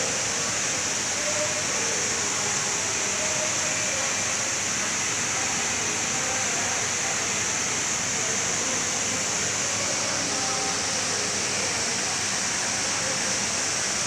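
Steady rushing and splashing of an artificial waterfall pouring into an ornamental pond.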